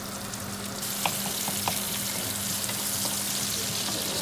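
Sliced onions sizzling as they fry in ghee in a frying pan, the sizzle growing a little stronger about a second in, with a few faint ticks.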